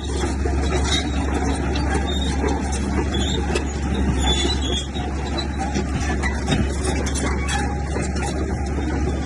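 Heavy earthmoving machinery's diesel engine running steadily, with many small metallic clanks and rattles over the drone.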